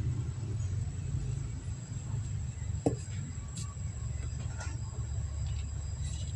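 Steady low background rumble with a faint steady high whine, and a few small clicks and taps from a circuit board with a potentiometer being handled, the sharpest about three seconds in.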